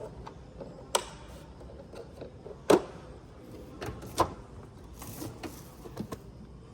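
Metal tools and drawers handled in a Husky rolling tool chest: several sharp clicks and knocks a second or so apart, with a brief sliding rasp about five seconds in.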